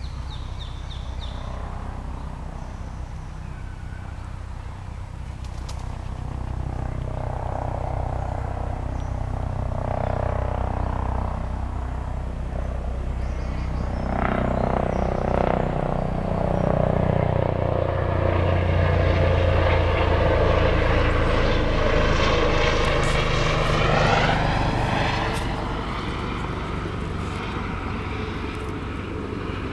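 Engine drone of a propeller aircraft flying over: it swells slowly, is loudest about two-thirds of the way through, and then fades.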